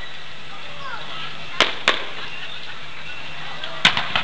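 Fireworks going off: two sharp bangs about a second and a half in, then another two near the end, with background voices between them.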